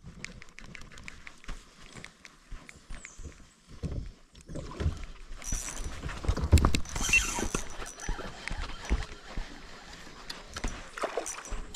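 Spinning rod and reel handled in a plastic kayak: a run of small sharp clicks, then a louder stretch of knocks and rubbing from about five seconds in.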